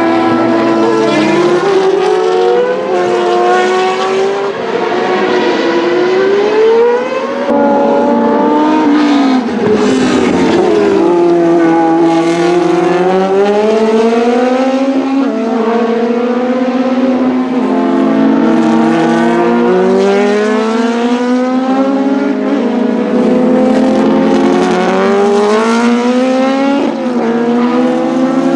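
Several racing car engines running hard at once, overlapping as the cars pass, their pitch climbing under acceleration and dropping back at each gear change, over and over.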